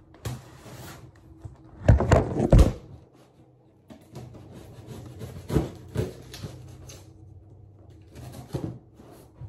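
Handling noise indoors: a short rustle, then a cluster of loud knocks and thumps about two seconds in, followed by a few scattered single knocks, as things are moved about and the phone is set down.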